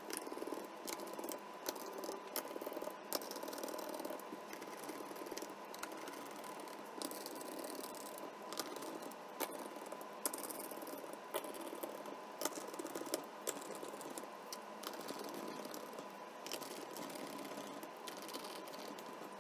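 Screwdriver driving small screws back into a plastic laptop bottom cover: a long run of irregular small clicks and rattles.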